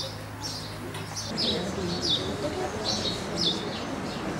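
A bird chirping over and over: short, high, falling chirps, about two a second.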